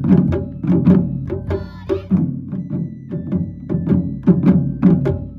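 Taiko ensemble playing: large barrel-shaped nagado-daiko drums struck with wooden bachi sticks in a steady, driving rhythm of about four heavy strokes a second.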